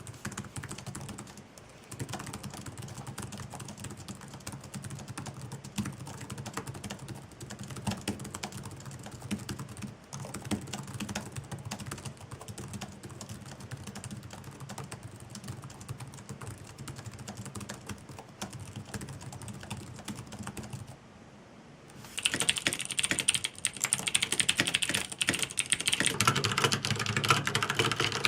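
Typing on a computer keyboard, a dense run of keystrokes. About three-quarters of the way through, after a brief pause, the typing turns clearly louder and sharper.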